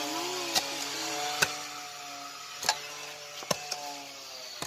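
A hoe's blade chopping into grassy soil, digging for earthworms: about five sharp, irregularly spaced strikes, the loudest about a second and a half in.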